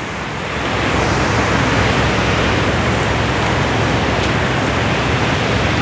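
Steady rushing wind in the hurricane's aftermath, growing a little stronger about half a second in.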